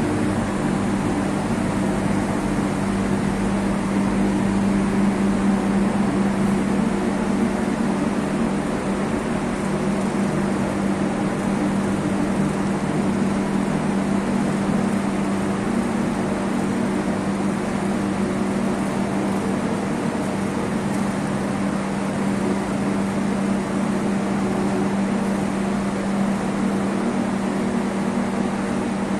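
Walnut processing machinery running steadily: an electric motor hum with a strong low tone under an even rushing noise.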